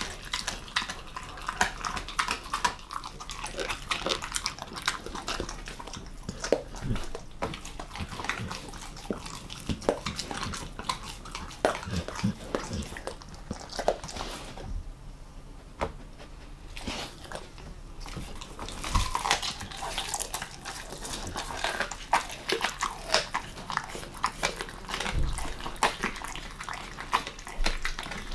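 A German Shepherd mix dog chewing raw monkfish close to the microphone: wet smacking and rapid clicky crunches. About halfway through, the chewing stops for a few seconds, then starts again.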